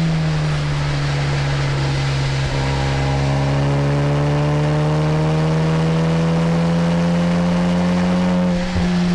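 Honda Civic Type R FK8's turbocharged four-cylinder engine heard from inside the cabin, pulling hard on track. Its note climbs steadily for several seconds after a brief break about two and a half seconds in. Near the end the sound breaks off for a moment and the pitch falls.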